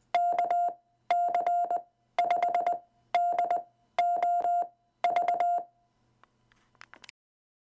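Morse code keyed as a single steady beep tone, sending the amateur callsign KC5DOV as six quick groups of dits and dahs, about one group a second, with a click at each key edge. A faint crackle follows near the end, then it cuts off.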